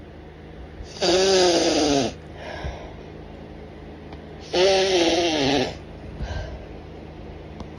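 Two loud sneezes about three and a half seconds apart, each a drawn-out voiced burst of about a second whose pitch rises and then falls, and each followed by a softer, shorter breathy sound. They are part of a long, intense sneezing fit.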